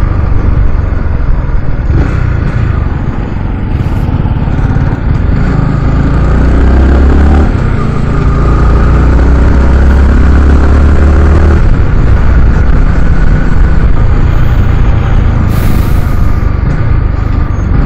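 Yamaha R15's single-cylinder engine running at road speed, heard under heavy wind buffeting on the bike-mounted camera's microphone. The engine note grows louder and steadier for about five seconds in the middle, then drops back.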